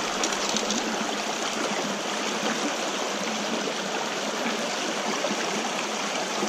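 Trout stream water running steadily over rocks, a constant rushing babble.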